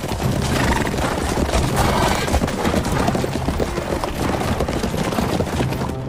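Hooves of many horses clopping on a dirt track as a column of riders passes: a dense, continuous clatter, with music underneath.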